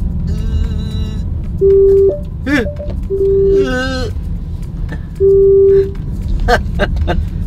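VW ID. Buzz parking sensors sounding three long, steady beeps about a second and a half apart, warning that the front of the van is close to an obstacle. Low road rumble runs underneath.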